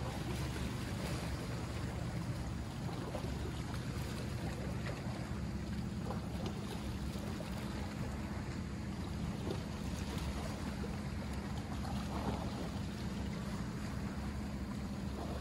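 Steady low rumble of wind and water at the shoreline, with wind buffeting the microphone.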